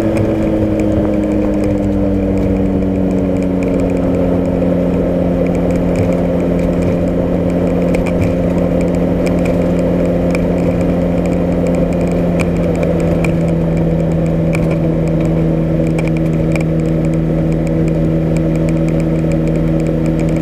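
Single-engine light aircraft's engine and propeller running at low power during the landing rollout and taxi; the engine note drops a little over the first few seconds, then holds steady.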